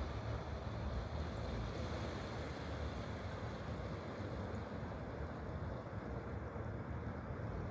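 Steady rushing of flowing water, with a low rumble underneath.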